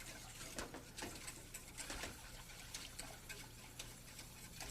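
Wire whisk stirring a milk and sugar mixture in a saucepan: faint, irregular clicks and scrapes of the wires against the pan, about two a second.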